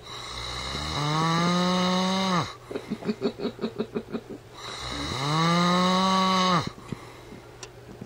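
A man snoring loudly with animal-like drawn-out pitched snores. A long rising tone is followed by a fast fluttering rattle of about five pulses a second, then a second long pitched snore.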